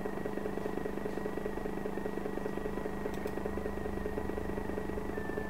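A steady machine hum and buzz with a fast, even pulse and a high whine that drops slightly in pitch near the end.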